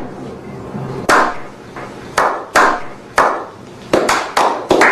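A series of sharp slaps or knocks, each dying away quickly, irregularly spaced at first and then quickening to about three a second near the end.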